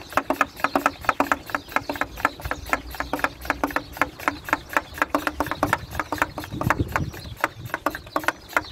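Plunger hand pump of a pump-up pressure sprayer being worked quickly up and down to build pressure in the tank. It makes a fast, even run of short strokes, about five a second.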